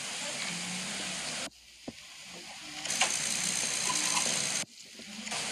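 Steady mechanical running noise with a hiss. It cuts out abruptly twice and each time builds back up.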